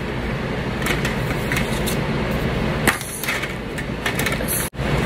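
Colouring supplies being rummaged through and picked out by hand on a craft table: a scatter of light clicks and clatters over a steady background hiss, with a brief dropout near the end.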